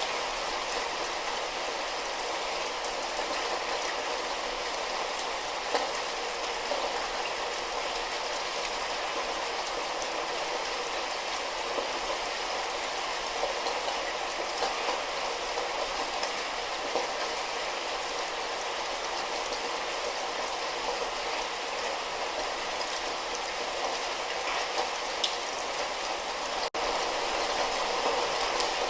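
Light rain falling steadily, an even hiss with scattered individual drop taps. It cuts out for a split second near the end.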